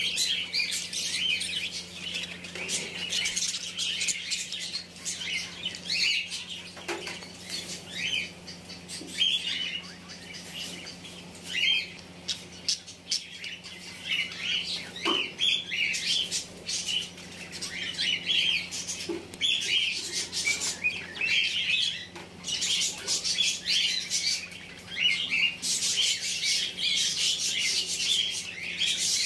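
A group of caged budgerigars chattering: many quick, overlapping chirps and squawks with no break.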